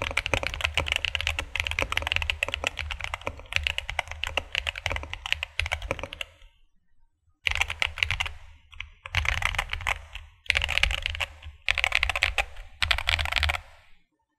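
Mechanical keyboard with Holy Panda tactile V2 switches and PBT double-shot keycaps being typed on: fast continuous typing for about six seconds, a brief pause, then five short bursts of rapid key presses.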